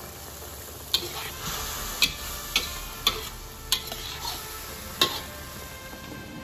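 Spatula stirring and tossing baby corn in oyster sauce in a wok, striking the pan in six sharp clacks over about four seconds, over the steady sizzle of the bubbling sauce.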